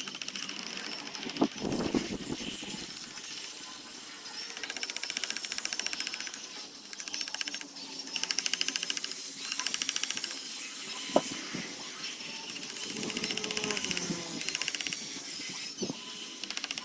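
Woodcarving work: a tool rasping against wood in repeated passes of a second or two, each with a rapid buzzing texture, with a few sharp knocks in between.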